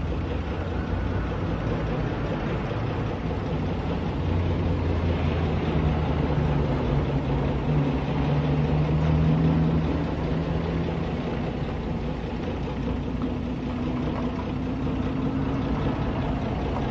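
Bus engine idling steadily, a low even hum.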